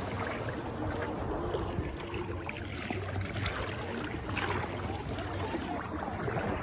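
Shallow sea water sloshing and lapping steadily around people wading, with a few small splashes.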